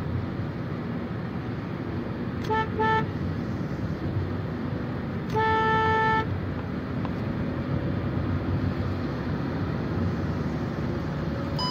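A vehicle's 80 km/h overspeed warning chime from the instrument cluster, sounding two short beeps and then one longer tone of the same pitch a couple of seconds later. It sounds over steady road and engine noise in the cabin and signals that the vehicle has reached about 80 km/h.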